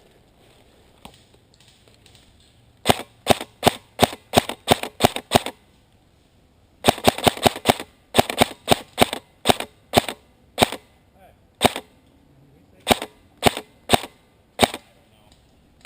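Airsoft rifle firing single shots in quick strings, each a sharp crack. A tight cluster of rapid shots comes about seven seconds in, and a final string near the end.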